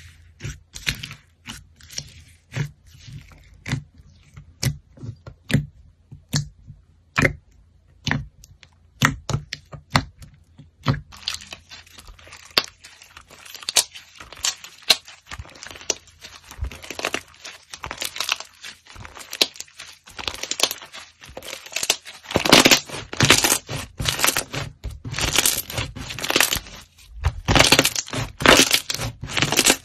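Slime being squeezed and kneaded by hand, with sticky crackling and popping. It starts as separate pops about once a second, then turns into dense, loud crackling about a third of the way in.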